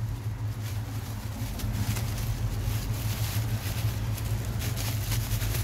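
Cardboard box being torn open and bubble wrap crinkling and rustling as a part is unwrapped by hand, in short irregular crackles over a steady low hum.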